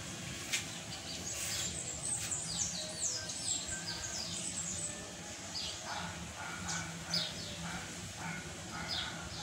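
Small birds chirping in quick runs of short, high, falling notes, with a faint low hum underneath.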